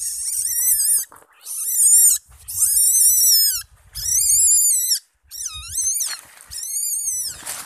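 Young common palm civet kits calling: a series of about six high-pitched, wavering squeals, each lasting about half a second to a second, with short gaps between them.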